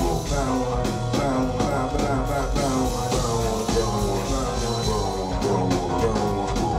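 Live band music with no vocals: an instrumental passage of pitched notes over a steady beat, heard through the room's PA.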